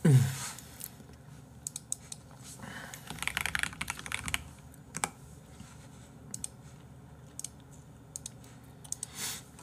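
Typing on a computer keyboard: a quick run of keystrokes about three to four seconds in, then scattered single key clicks. A short falling voice sound, like a hum, at the very start.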